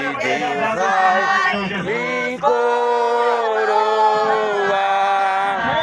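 People singing a Portuguese gospel hymn without instruments, moving into one long held note about two and a half seconds in.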